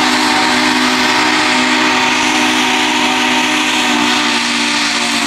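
Union Pacific 844's steam whistle sounding one long blast: a steady chord of several tones with a rush of steam hiss over it.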